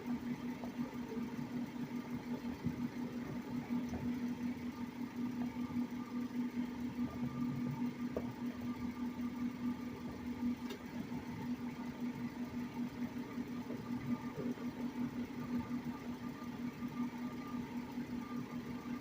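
A steady low mechanical hum with a fast, even flutter, with a couple of faint sharp clicks in the middle.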